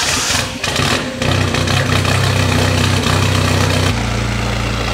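Toyota pickup truck's engine just started and running at a raised idle, its note dropping to a lower, steady idle about four seconds in.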